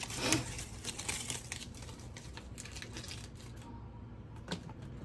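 A mop brush being stroked and crisscrossed over a canvas panel to blend acrylic paint, making a run of quick, scratchy brushing sounds. They are loudest just after the start, thin out after about three and a half seconds, and one more stroke comes near the end.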